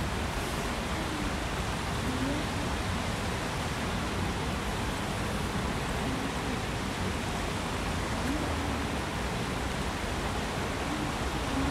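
Small river rushing over a rocky cascade: a steady, even rush of water.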